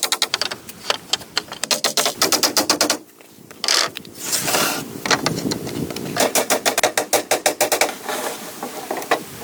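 Rapid knocking of tools on wood, about ten strikes a second, pausing briefly about three seconds in, with a short scraping rush near four seconds before the knocking resumes.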